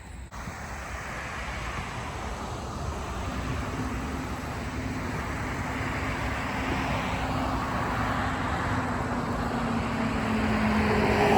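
Fire engine approaching, its engine and road noise growing steadily louder, with a low steady drone joining a few seconds in and dipping slightly in pitch near the end.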